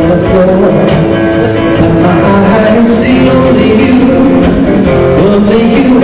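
A band playing music, with guitar.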